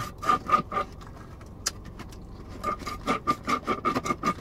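Noisy slurping through a drinking straw from a fast-food cup: a rapid, rasping series of sucks that pauses about a second in and starts again about halfway through.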